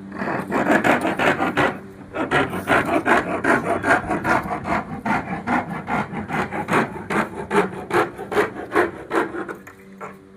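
A hand tool worked back and forth against material in quick, even strokes, about three a second, with a short pause about two seconds in.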